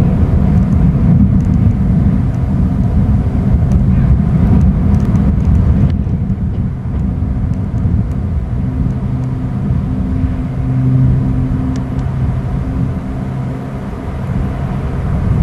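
Steady low engine rumble, with a few held pitches that swell briefly about ten seconds in.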